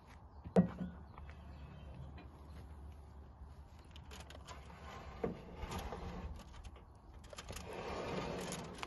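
Knocks and scraping of a foil-covered pan being slid into the oven of a cast-iron wood stove, with a sharp knock about half a second in and a longer scrape near the end.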